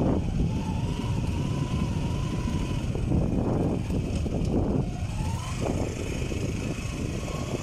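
Motorcycle running on the move, under a dense low rumble of wind and road noise, with a faint wavering whine above it.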